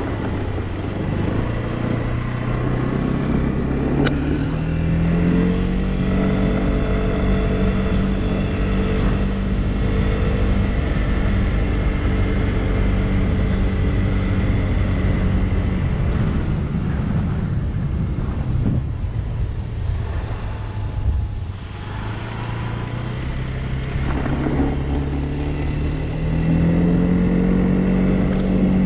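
100cc motorcycle engine running under way: its pitch climbs over the first few seconds as it accelerates, holds steady at speed, drops away past the middle as the throttle eases, and climbs again near the end.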